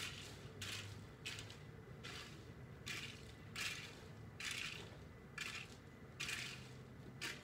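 Repeated crunching in gravel, about one crunch every three-quarters of a second, over a faint low hum.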